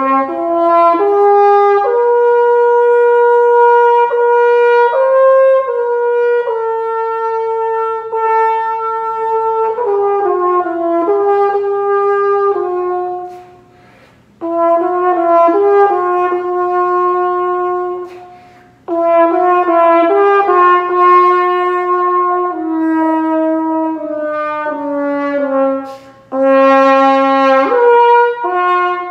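Compact "baby" French horn played as a slow melody of held, smoothly connected notes, with three short pauses between phrases.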